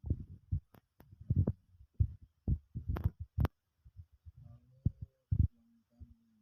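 Irregular dull thumps and knocks with a few sharp clicks, over a faint low hum.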